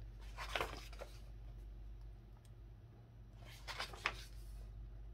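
Glossy magazine pages being handled and turned: two short papery swishes, about half a second in and again near four seconds, the second ending in a sharp snap as the page flips over, above a low steady hum.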